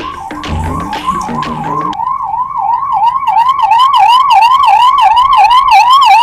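Emergency vehicle siren sounding a fast up-and-down yelp, about three cycles a second, growing louder as it approaches.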